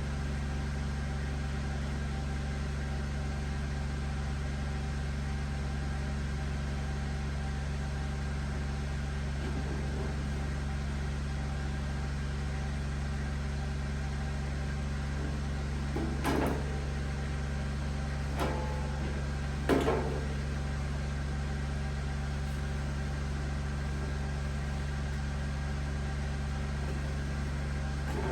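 A machine running with a steady hum at a constant pitch, with three short metallic knocks a little past halfway.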